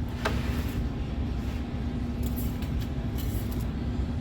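Steady low rumble of running machinery with a faint held hum, a light click about a quarter second in, and a couple of brief scraping rustles later.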